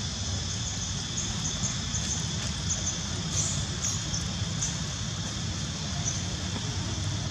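Steady outdoor background noise: a low rumble with a constant high hiss, and faint short high ticks scattered through.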